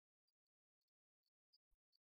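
Near silence, with a few very faint scattered clicks.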